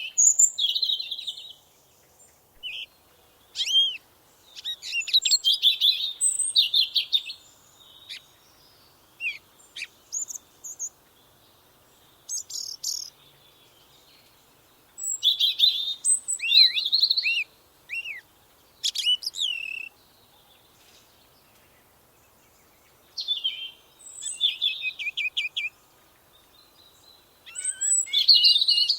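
Songbirds singing in short, high-pitched phrases of chirps, trills and down-slurred whistles, with brief pauses of a second or two between phrases.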